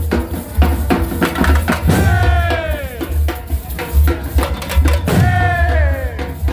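Loud percussion-heavy music with a pulsing deep bass and dense drum hits, and a falling pitched sweep about every three seconds.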